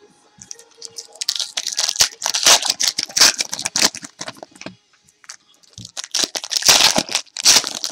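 Baseball card pack wrappers being torn open and crinkled by hand: a dense run of crackling rustles that thins out midway, then picks up again.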